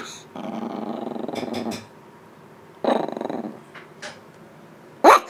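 Eight-week-old Shiba Inu puppy growling in a play bow: a rumbling growl lasting about a second and a half, a shorter, louder growl around three seconds in, and a sharp little bark near the end.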